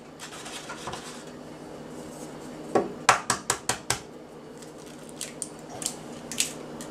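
Eggs being handled and cracked by hand over a glass mixing bowl of flour: a quick run of sharp clicks and taps about three seconds in, then a few scattered taps as the egg is cracked.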